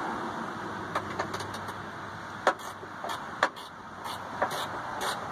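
Several short, sharp clicks and knocks, a second or so apart, from a Subaru Impreza GC8 door being fitted to its hinges while a hinge bolt is threaded in by hand, over steady background noise.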